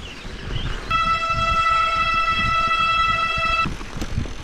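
A loud horn blown as one steady note for nearly three seconds, starting about a second in and cutting off sharply. Low wind and tyre rumble from riding runs underneath.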